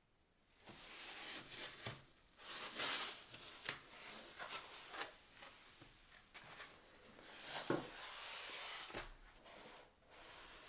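Keyboard packaging being handled and opened: on-and-off rustling and scraping, with a few sharp knocks.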